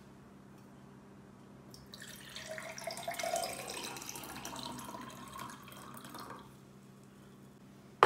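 Water pouring into a container, starting about two seconds in and stopping after a few seconds, its pitch rising as the container fills.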